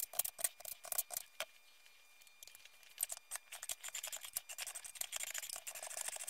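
Light clicks and ticks of small metal parts and tools being handled, turning to a soft continuous scraping from about three seconds in.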